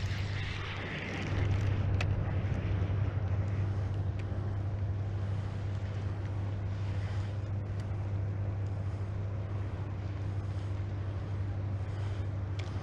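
A steady low mechanical hum with evenly spaced overtones, like a motor running, with a light hiss over it. In the first couple of seconds a spinning reel is wound in.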